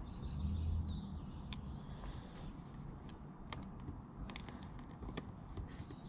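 Scattered light clicks and taps of hands working a vinyl wrap onto a car door handle. A brief low rumble comes about half a second in, and a short high falling chirp just before the one-second mark.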